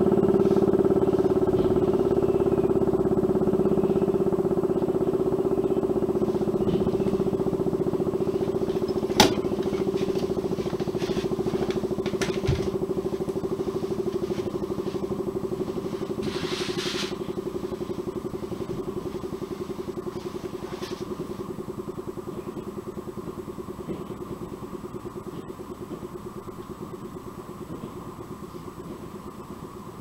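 Electric rotary mechanical siren sounding a steady low tone that slowly gets quieter. A sharp click comes about nine seconds in.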